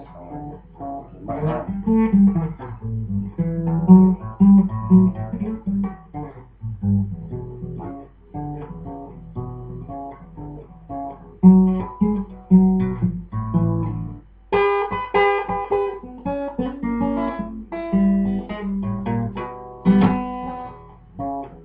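Acoustic guitar played blues-style: a run of single plucked notes and short riffs, mostly low on the neck. A denser, brighter passage about two-thirds of the way through.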